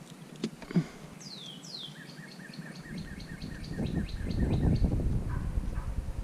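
A songbird singing: two quick falling whistles, then a rapid run of evenly repeated short notes, about five a second. Underneath, a low rumbling noise builds and is loudest in the second half, with a couple of sharp clicks in the first second.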